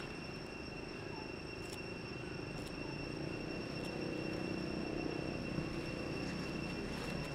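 Steady high-pitched drone of insects, one unbroken tone with a fainter higher overtone, over a low background hum.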